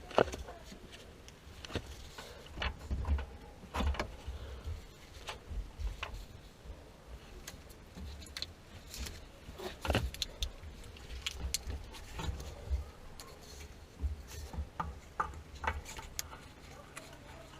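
Tools and metal parts clinking and knocking at irregular intervals during hands-on work on a water heater's supply line, over low rumbling thumps.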